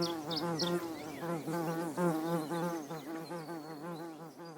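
Evening insect sound effect: a pitched buzz pulsing about four times a second, with a few high bird chirps at the start, fading away near the end.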